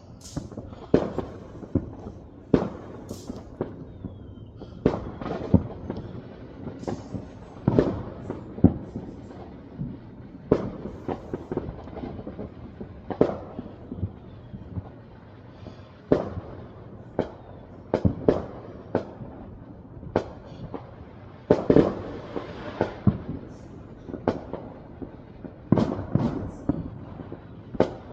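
Fireworks and firecrackers going off all around: irregular sharp bangs, about one a second, some much louder than others, each trailing off in an echo.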